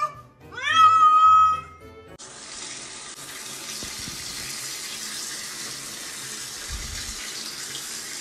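A loud, drawn-out cry about half a second in, dropping in pitch and then held high for about a second. From about two seconds in, a handheld shower head sprays water over a cat: a steady hiss of running spray.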